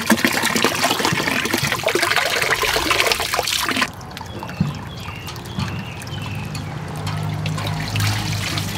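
Water splashing and dripping as a bunch of leaf lettuce is swished and rinsed in a tank of water, cutting off suddenly about four seconds in. After that, a softer trickle of water, with a low steady hum coming in near the end.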